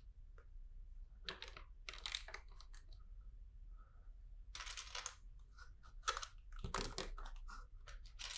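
Small plastic LEGO bricks being handled and sorted: scattered faint clicks and rattles of pieces, with a short rustle about halfway through.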